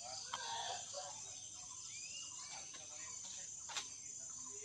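Insects shrilling in a steady high continuous tone in garden vegetation, with faint voices and a single sharp click or knock near the end.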